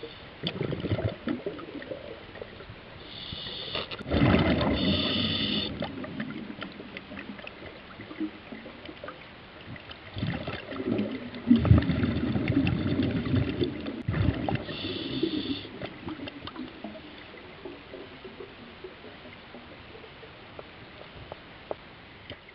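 Muffled underwater noise from a submerged camera: irregular bursts of low rumbling and gurgling, loudest about four seconds in and again near the middle, with a few short high whines.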